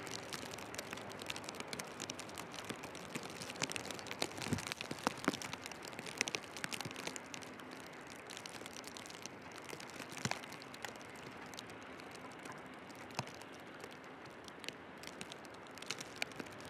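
Snowstorm ambience: a steady hiss of wind and falling snow, with scattered soft crunching clicks that are thickest in the first half and thin out later.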